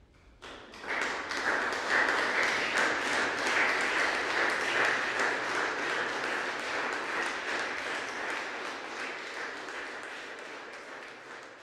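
Audience applauding: the clapping breaks out suddenly about half a second in, reaches full strength within a second and then slowly dies away.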